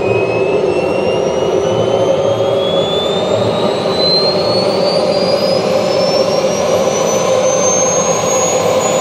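Behotec JB-180 model jet turbine spooling up on the ground during start-up: a steady rush with a whine that climbs slowly in pitch.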